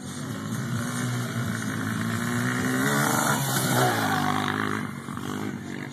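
Red sport ATV (quad bike) engine revving as it accelerates and passes close by. The pitch rises for a couple of seconds, then drops as it goes past, loudest about four seconds in, and fades as it moves away.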